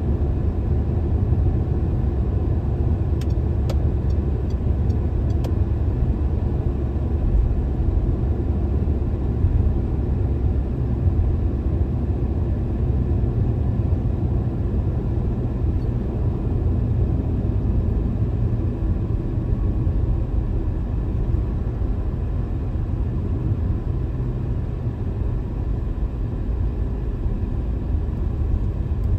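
A car being driven along a city highway: a steady low rumble of tyres and engine.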